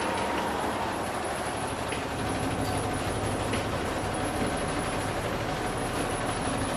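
A boat's engine running steadily, a constant low drone heard from inside the cabin while the boat is under way.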